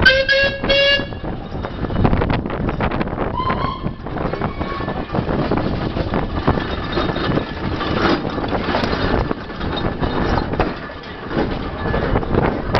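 Steam whistle blown for about a second, rising slightly in pitch, with a shorter, higher toot about three and a half seconds in. Then a steam road roller runs past close by, its engine and iron rolls clattering steadily, with its towed trailers rumbling behind.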